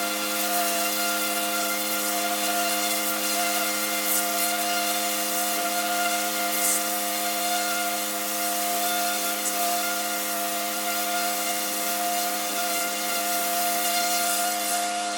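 Pressure washer running steadily: a constant droning machine tone under the hiss of the water jet spraying onto brick paving.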